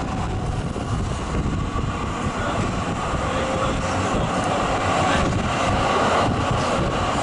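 Electric tram pulling away from a stop, heard from an open side window: a faint motor whine over the rumble of the wheels on the rails and wind noise.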